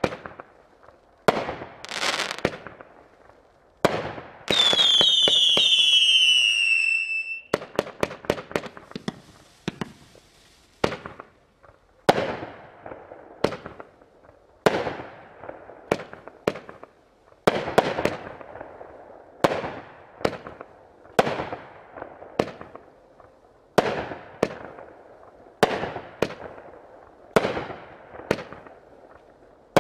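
Magnus '60 Sec Plus' (M1089) 48-shot fireworks cake firing shot after shot, about one a second, each a sharp report with a fading tail. About four seconds in, a cluster of whistles sounds together for about three seconds, falling in pitch.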